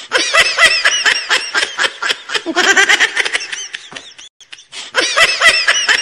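High-pitched laughter in quick, repeated bursts, breaking off for about a second around four seconds in.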